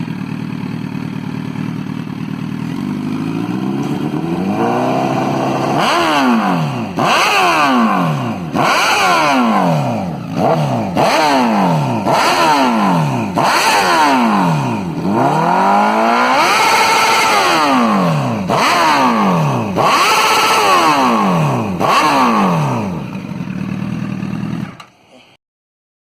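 Honda CBR1000RR's inline-four engine through a Hurricane aftermarket exhaust, idling and then revved in a string of short throttle blips, the pitch rising and falling about every second and a half, loud. It settles back to idle and then cuts off suddenly near the end.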